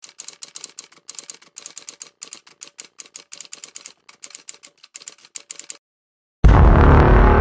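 Typewriter keys clacking in quick, uneven succession as a typing sound effect, stopping after about six seconds. Then a sudden, loud, deep hit that rings out and slowly decays.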